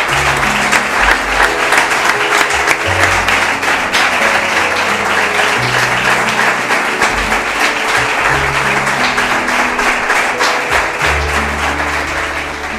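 A roomful of people applauding steadily, thinning out near the end, over soft background music with low held notes.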